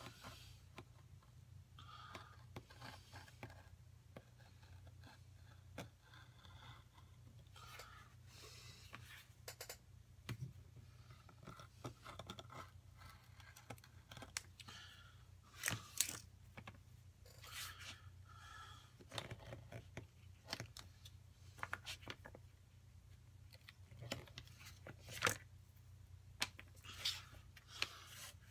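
Utility knife and rotary cutter cutting through leather on a cutting mat: faint, irregular scraping with scattered sharp clicks, over a steady low hum.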